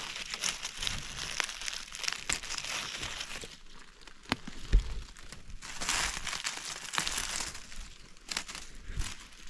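Irregular rustling and crackling of dry forest-floor vegetation and twigs, with small snaps throughout and one dull thump near the middle.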